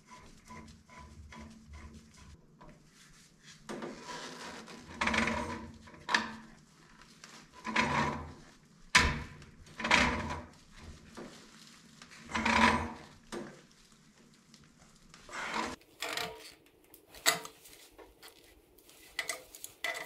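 Metal hand tools scraping and knocking against the brass fittings and coupling nuts of a water meter as they are fitted and tightened: about a dozen separate rubbing strokes, with sharper clicks near the end.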